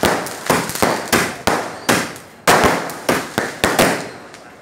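Firecrackers going off: a quick, irregular run of sharp bangs, about two or three a second, each trailing off before the next, with a short lull near the end.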